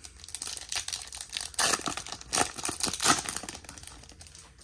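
Topps baseball card pack wrapper being torn open and crinkled in the hands, a run of crackly rips with the loudest in the middle, fading out near the end.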